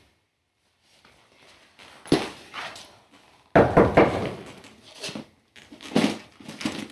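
Several sudden thuds and knocks, each fading quickly; the loudest comes about three and a half seconds in.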